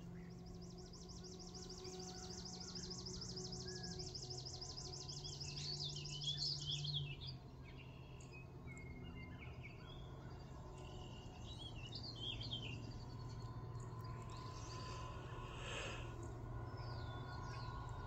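Dawn chorus of songbirds: a long, fast, high trill for the first several seconds, then scattered chirps and short song phrases, over a faint low steady hum.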